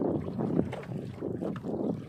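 Wind buffeting the microphone on a small boat at sea: an uneven rushing noise that swells and fades.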